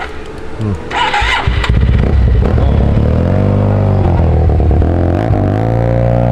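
Stage-2 tuned Yamaha T-MAX 500 scooter's parallel-twin engine starting up about two seconds in. Its revs rise and fall once, then it settles into a steady idle.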